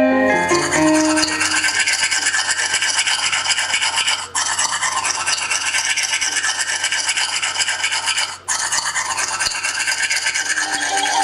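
A harsh, steady rasping, scratching noise played as a sound effect in a stage soundtrack. It breaks off briefly twice, about four and eight seconds in.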